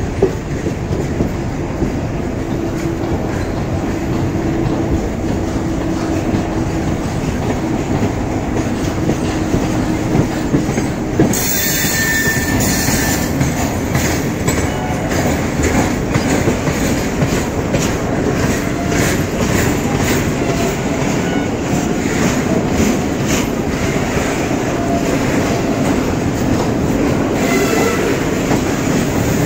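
Passenger train coaches running, heard from an open coach door: a steady rumble with wheels clicking over rail joints and points. The sound turns sharper about eleven seconds in, with quick runs of clacks.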